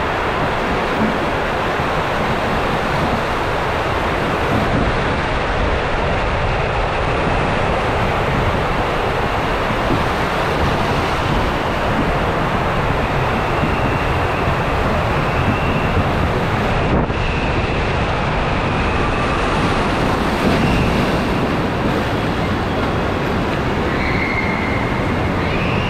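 Water rushing and a raft sliding fast down an enclosed ProSlide Mammoth water-slide tube: a loud, steady rush that goes on without a break.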